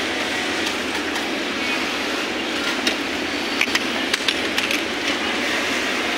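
Industrial sewing machine's motor running steadily without stitching, with a cluster of sharp clicks and taps from handling the fabric and machine about three to five seconds in.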